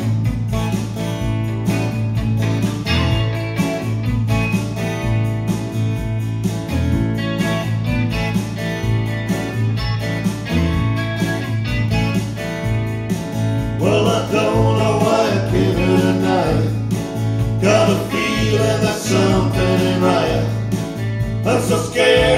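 Live trio playing an instrumental passage: electric bass guitar holding steady low notes under strummed acoustic guitar, with an electric lead guitar line whose wavering, bent notes come forward about two-thirds of the way through.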